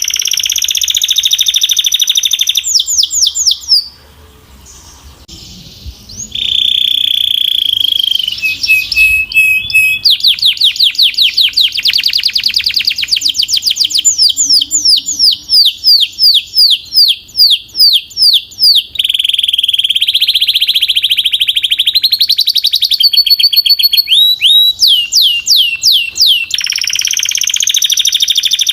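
Belgian canary singing a loud song of fast, evenly repeated trills and rolling phrases, breaking off for about two seconds around four seconds in and then carrying on.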